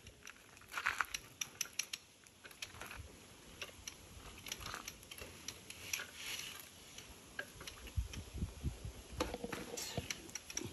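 Scattered light clicks and taps from a drill mixer, stopped, and its mixing paddle being handled in a bucket of mix.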